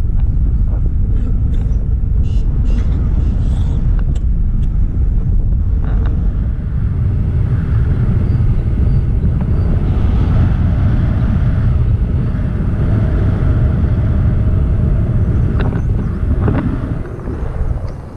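Wind rushing over the camera microphone in paragliding flight: a loud, steady low rumble, with a few light clicks in the first few seconds.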